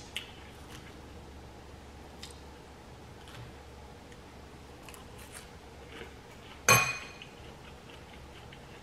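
Faint clicks of chewing salad, then a single sharp clink with a short ring about seven seconds in as a metal fork is set down against a glass salad bowl.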